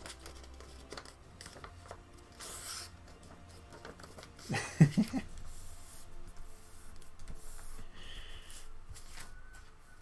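Faint background music from a playlist under small-room tone, with brief rustling and handling noises of paper and foam being worked, and one short louder sound a little before halfway.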